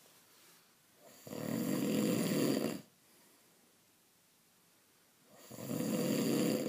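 Snoring: two long, rasping snores about four and a half seconds apart, each lasting about a second and a half, with quiet between.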